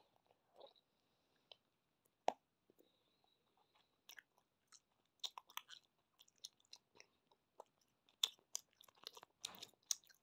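Close-up chewing of a large wad of Hubba Bubba bubble gum: quiet, irregular wet smacks and clicks of the mouth, sparse at first and more frequent from about four seconds in.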